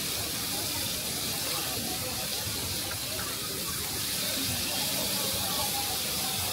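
Steady hiss, like running water or steam, with faint voices in the background.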